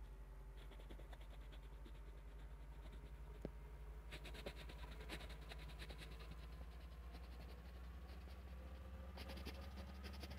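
Coloured pencil scratching on paper in quick back-and-forth shading strokes, in spells about a second in, from about four to six seconds and again near the end. A steady low hum runs underneath.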